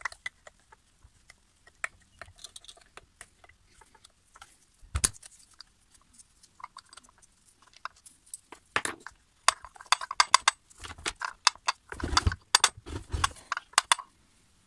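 Small metal parts clicking and clinking as the retaining clip and washer come off a Stihl MS 391 chainsaw's clutch drum and the rim sprocket drum is worked at by hand. Scattered light clicks at first and a knock about five seconds in, then a busier run of clinks and knocks from about nine seconds on.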